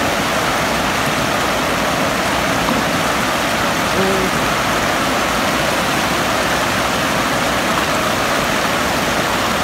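River water pouring over a low weir: a steady, even rush of water.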